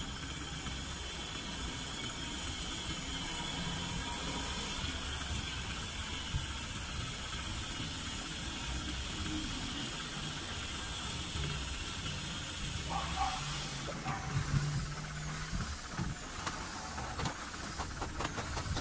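Canon TS6360 inkjet printer printing a photo: a steady mechanical whir and hiss as the print head works and the paper feeds out. About fourteen seconds in this gives way to irregular clicks and rustles as the finished print is handled.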